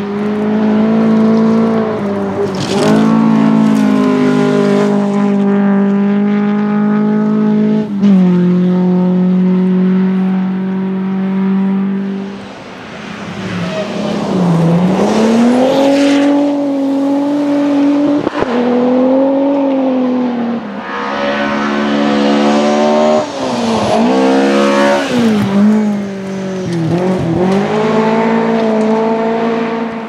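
Rally cars driven hard on a gravel stage, one after another: first an air-cooled Volkswagen Beetle, then a second car about halfway through. Each engine revs high and holds, with sudden pitch drops at gear changes.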